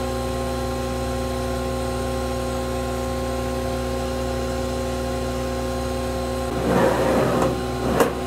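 Steady hum of a Rawmid multi-oven's fan running. Near the end there is a short scrape as the metal baking tray slides back onto the oven rack, then a sharp knock.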